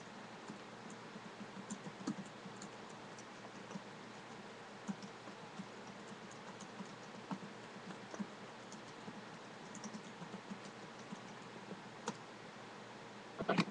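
Typing on a computer keyboard with mouse clicks: soft, irregular key clicks over a steady faint hiss. A quick cluster of louder clicks comes near the end.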